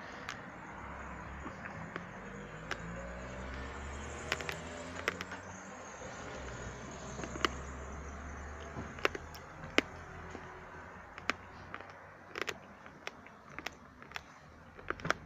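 A motor vehicle's engine running, its pitch sliding up and down, fading out after about nine seconds. Sharp clicks are scattered throughout.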